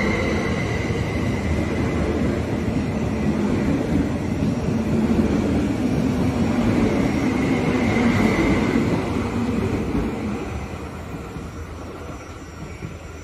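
Koleje Mazowieckie electric multiple unit running past along the platform: a steady rumble of wheels on rail with a high whine rising and falling about eight seconds in. The noise fades over the last few seconds as the train draws away.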